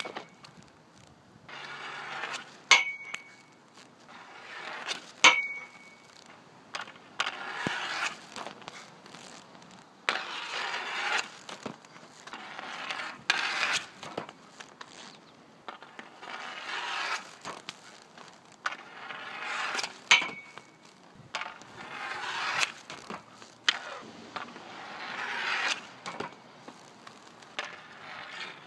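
Inline hockey shots on an outdoor rink: repeated sharp cracks of a graphite Reebok 4K stick hitting the puck and the puck hitting the net and boards, between stretches of scraping, rolling noise from skate wheels and stickhandling on the rink surface. Three times a short metallic ping rings out as the puck strikes the goal's metal frame.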